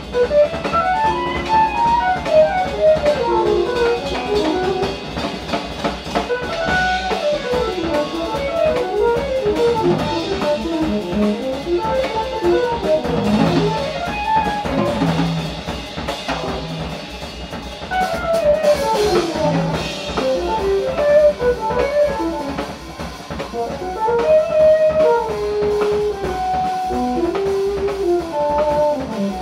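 Jazz-fusion band playing live: electric guitar, synthesizer, electric bass and drum kit, with fast lines of short notes that keep climbing and falling over the drums.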